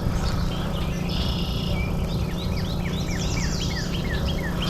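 A bird singing a run of quick falling chirps, about four a second, over a steady low outdoor hum. A short buzzy note comes about a second in.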